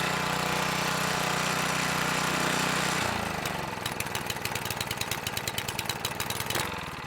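Motor-driven rotary machine running steadily with a low hum. About three seconds in it drops in pitch into a run of rapid, regular knocks, which fade near the end as the machine winds down.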